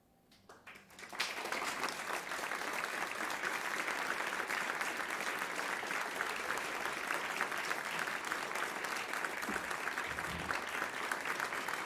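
Audience applause at the end of a piece. After about a second of near silence, a few scattered claps come first, then dense, steady clapping that holds to the end.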